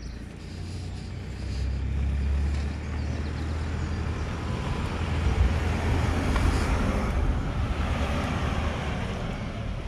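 A motor vehicle driving past on the road, its low engine rumble and tyre noise swelling over several seconds and fading near the end.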